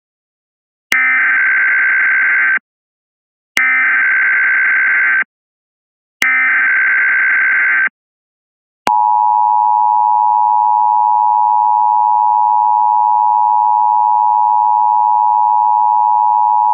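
Emergency Alert System SAME header: three identical bursts of digital data tones, each under two seconds and a second apart. It is followed by the EAS two-tone attention signal, a steady dual tone of about eight seconds that cuts off sharply at the end.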